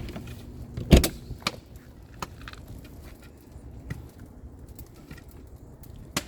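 A hatchet chopping at a piece of firewood: one loud sharp knock about a second in, a few lighter knocks after it, and another near the end.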